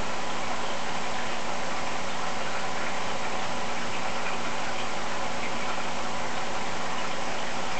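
Steady mechanical hum over a constant hiss, unchanging throughout.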